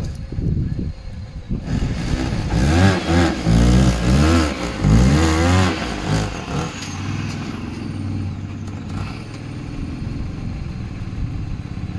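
Peugeot 308 1.6 petrol engine blipped about five times in quick succession, then settling to a steady idle about six seconds in. The exhaust is blowing from a split flex pipe.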